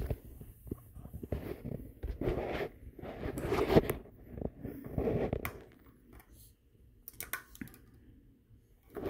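Large plastic toy building blocks being handled and knocked together: irregular rustling and clacking, with a few sharp clicks later on, then quieter near the end.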